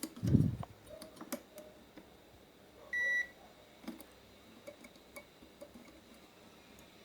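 Digital multimeter continuity beep: one short high beep about three seconds in, the sign that the probes found a conducting path. Light clicks and taps of the probes on the circuit board come before it, and there is a dull thump just after the start.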